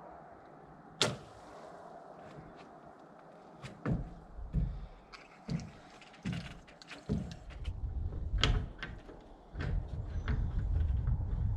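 Irregular knocks and thumps, about a dozen, with a sharp knock about a second in, then a heavy low rumble from near the end.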